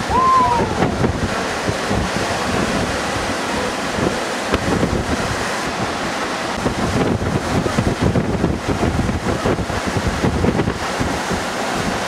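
Surf breaking and washing up the beach, with wind buffeting the microphone.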